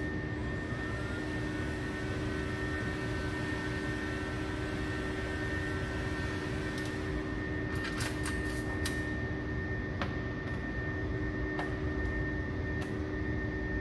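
Handheld electric heat gun running with a steady blowing hiss and hum, heating the edge of the vinyl wrap film to soften it. A few sharp clicks come over it in the second half.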